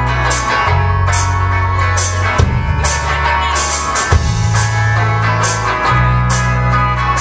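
Live band playing a country-rock song on drum kit, guitar and bass. Held bass notes change every second and a half or so under repeated cymbal hits.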